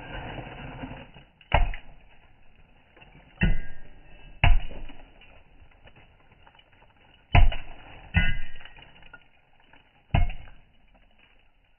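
Hand tools striking basalt as a molcajete is carved by hand: six sharp, irregularly spaced blows, some with a brief metallic ring.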